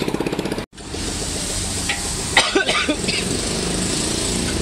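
An engine running steadily, cut off to silence for a moment just under a second in, then running on. There is a short cluster of sharp sounds about halfway through.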